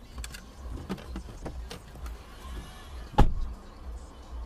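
Low rumble of a moving car recorded by a dashcam, with scattered light knocks and one sharp, loud bang about three seconds in.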